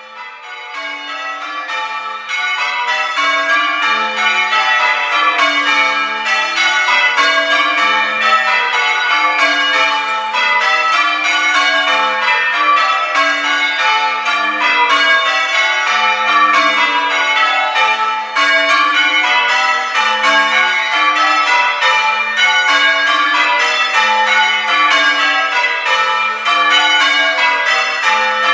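Church tower bells change ringing: a ring of bells struck one after another in quick, even succession, the order shifting from row to row. The ringing fades in over the first two seconds, then carries on at a steady level.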